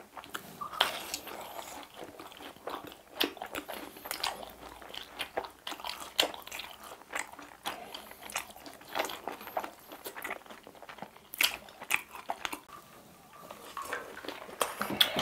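Close-miked crunching and chewing of crispy fried chicken bites, irregular crackly bites one after another.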